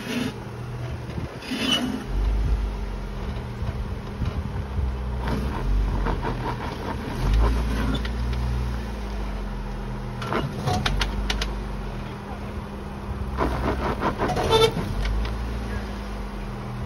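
Jeep Wrangler's engine running at low crawling speed, the low rumble swelling now and then as the throttle is fed in. Scattered sharp knocks and scrapes come over it, clustered about ten seconds in and again near the end.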